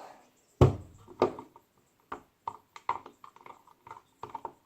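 Knocks and taps from handling slime-making containers and utensils: two heavier knocks in the first second or so, then a run of quick, lighter clicks.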